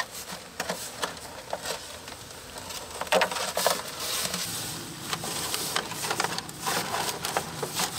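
Liquid nitrogen boiling off in a plastic tub with a steady hiss, louder from about halfway through, with scattered crackles and light knocks as things in the tub are handled.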